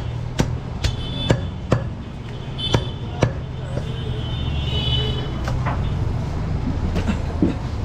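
Butcher's cleaver chopping through goat meat and bone: a quick run of sharp chops about two a second, spacing out after the first two seconds, over a steady low background hum.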